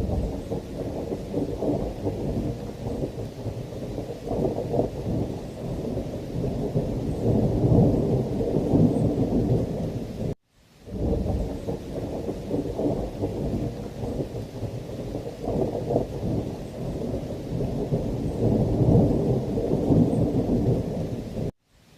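Heavy rain with a continuous, rolling thunder rumble, its energy deep and low. The sound drops out to silence for a split second about ten seconds in.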